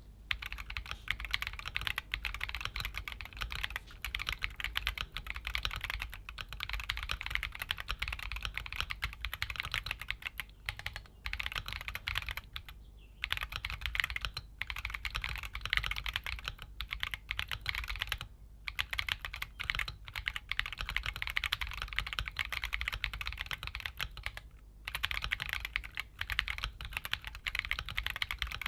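Keychron Q1 Pro mechanical keyboard being typed on quickly and continuously, a dense run of key clicks broken by a few brief pauses.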